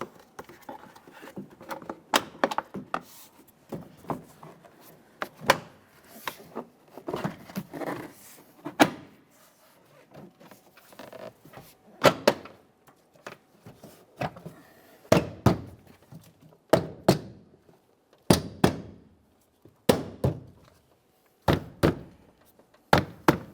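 Plastic rear interior door panel of a Chevrolet Silverado being pressed and struck by hand onto the door, a series of sharp knocks as its locking tabs and clips seat. The knocks are softer and busier at first, then louder and more spaced, often in quick pairs, from about halfway.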